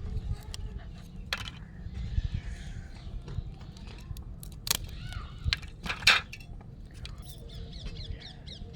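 Pieces of roasted multani mitti (Fuller's earth clay) cracking and crunching: a few sharp cracks with smaller crackles between them, the loudest about six seconds in, over a steady low rumble.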